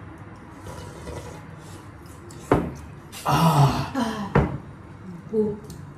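Eating sounds at a table with bowls and utensils: two sharp knocks about two seconds apart, and between them a second of loud noise with a low voice in it.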